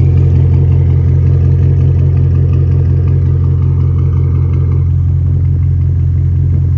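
Audi S8 engine idling steadily while it warms up, a loud, even low drone through its catless downpipes and full exhaust.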